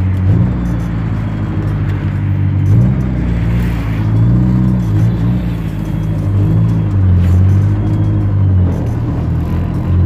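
Fiat 147's four-cylinder engine driving through a modified homemade exhaust: a turbito muffler with a short pipe added that turns down. Heard from inside the cabin, the engine note rises and drops several times as the car accelerates and changes gear.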